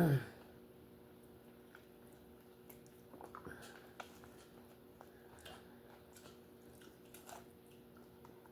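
Faint close-up eating sounds: chewing lobster meat, with scattered small wet clicks and squishes. A short louder burst sounds right at the start, and a faint steady hum runs underneath.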